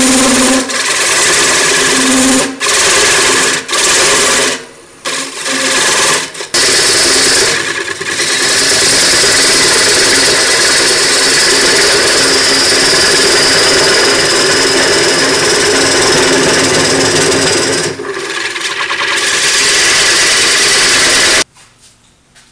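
Diamond parting tool cutting an expansion recess into the face of a spinning Jatoba (Brazilian cherry) blank on a wood lathe: a loud, steady cutting noise. It breaks off briefly several times as the tool comes off the wood, and stops abruptly near the end.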